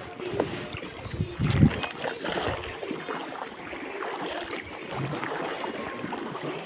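Footsteps wading and splashing through a shallow creek, with running water and wind buffeting the microphone. A loud low thump comes about a second and a half in.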